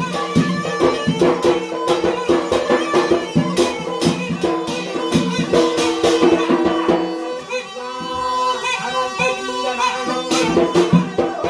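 Yemeni wedding dance music: a mizmar reed pipe plays a held, reedy melody over fast struck percussion, including a beaten metal tray. About seven seconds in the percussion thins out and the pipe carries on nearly alone.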